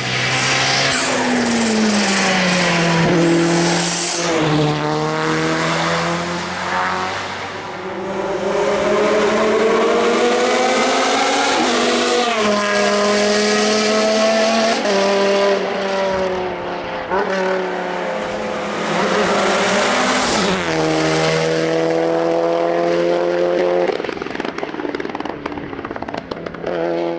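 Touring race car engine running hard under load: the revs climb and then drop sharply at each gear change, several times over.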